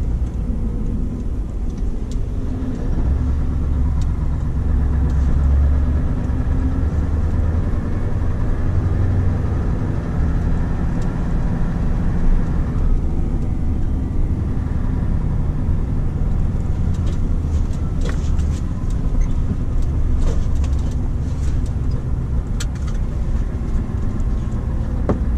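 Scania R520's V8 diesel engine running steadily at low speed as heard inside the cab, with road noise and a few light clicks in the second half.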